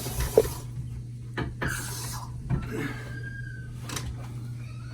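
Water running from a small spigot on a water-filter line stops about half a second in. It is followed by a few clicks and knocks and some rubbing from handling the valve and a glass jar, with a short second burst of running water around two seconds and a steady low hum underneath.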